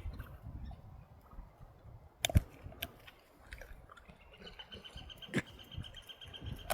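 A dog chewing and crunching a stick, with irregular snaps of wood and one sharp crack about two seconds in.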